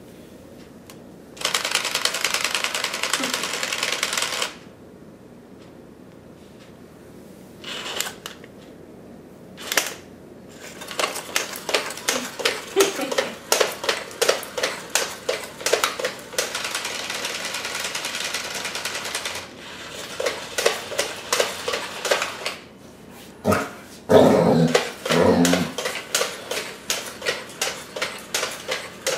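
Silver toy robot dog walking on a tile floor: its motors whir and its plastic feet clack in a quick, regular rhythm. A steady whir runs for about three seconds near the start. A short run of loud barks comes about 24 seconds in.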